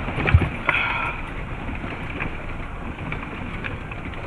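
Land Rover Defender moving slowly on a muddy lane, heard from inside the cabin: steady engine and road noise, with a heavy thump about a third of a second in.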